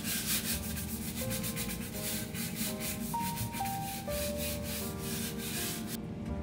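A stiff-bristled hand scrub brush is scrubbed back and forth over ceramic floor tiles in quick, scratchy strokes. The strokes stop suddenly near the end as the brush is set down. Light background music plays underneath.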